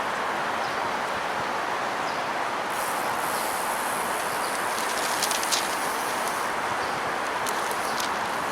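Strong wind blowing steadily, with short crackling rustles, mostly in the second half.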